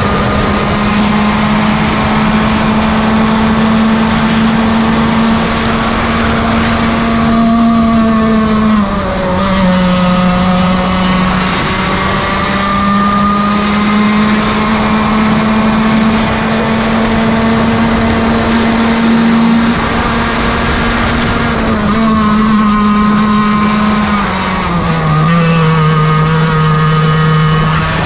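Yamaha KT100 two-stroke kart engine with a can muffler, running at high revs in a race. Its note drops sharply twice, about a third of the way in and again near the end, then climbs slowly back. Other karts' engines are heard at different pitches alongside it.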